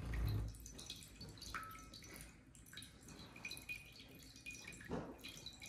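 Faint trickling and dripping of water poured slowly from a glass into a shallow plate already holding water, with a low thump right at the start.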